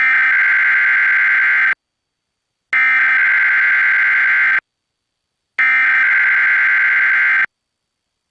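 Emergency Alert System SAME header: three identical bursts of digital data tones, each just under two seconds long, with about a second of silence between them. This buzzy, screeching modem-like sound encodes the alert's header and opens an EAS test.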